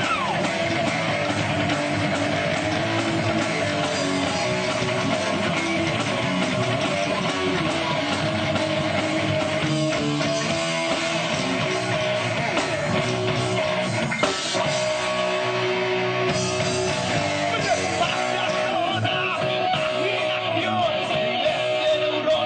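Rock band playing live, electric guitars to the fore over bass and drums, at a steady loud level.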